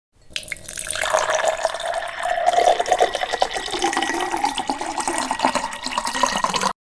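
A drink being poured into a glass, splashing steadily while its resonant pitch rises as the glass fills. It cuts off abruptly near the end.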